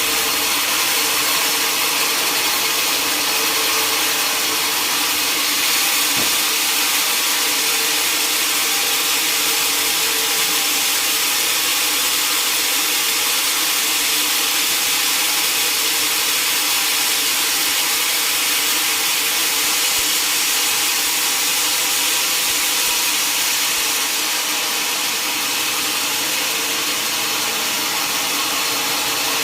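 Sawmill saw running steadily as it cuts through a mahogany log, an even hiss with a steady hum beneath it.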